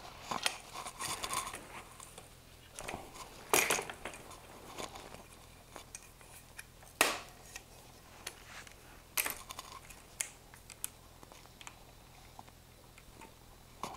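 Metal clicks, clanks and rattles of an aluminium folding bike being unfolded by hand, its frame and handlebar-stem hinges swinging open and parts knocking together. Three sharp clacks stand out, a few seconds apart.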